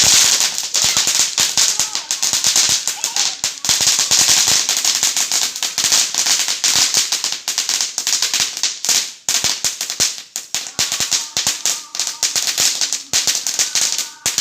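A firework ignites suddenly and keeps crackling and hissing fast and densely, with many sharp pops in quick succession.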